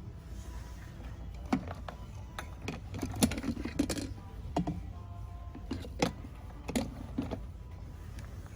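Scattered light clicks and knocks, about a dozen at uneven intervals, over a steady low hum.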